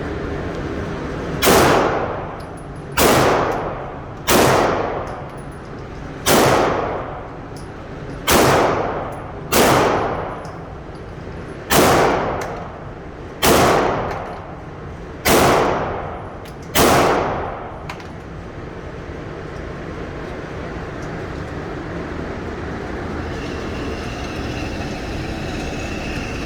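Glock pistol fired ten times at a steady pace, one shot every one to two seconds, each crack followed by a short decaying echo; the firing stops about seventeen seconds in, leaving a steady background hiss.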